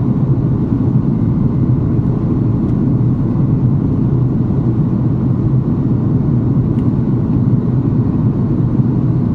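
Steady cabin drone of an Airbus A330-243's Rolls-Royce Trent 700 turbofans and the rushing air along the fuselage during the climb after takeoff, heard inside the passenger cabin. The noise is low and even, with a faint thin tone above it.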